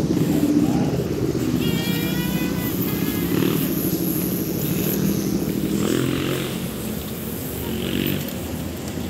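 City street traffic: motorcycle and car engines running and passing in a continuous low rumble, with a short high-pitched tone about two seconds in.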